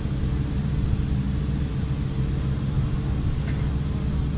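Crane service truck's engine idling steadily, a low, even sound.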